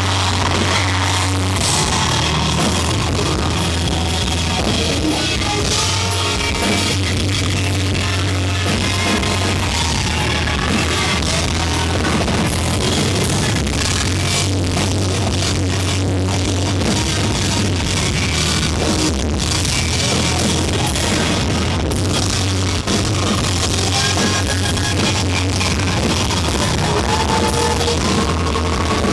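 A rock band playing live and loud: electric guitar over bass and a drum kit, with a strong, steady bass line.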